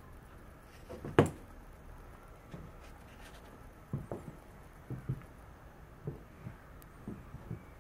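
A single sharp knock about a second in, then soft low thuds, some in close pairs, coming roughly once a second.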